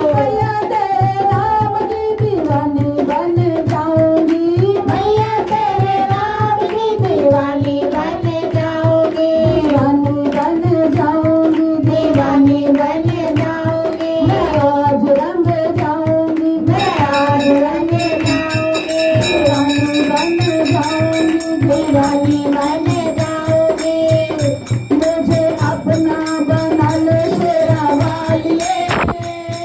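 Instrumental devotional bhajan music: a smooth, held melody over a steady hand-drum beat. A bright jingling layer comes in a little past halfway.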